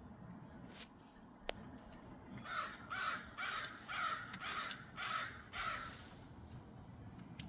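A crow cawing, a run of about seven harsh caws in quick succession, roughly two a second, starting a couple of seconds in.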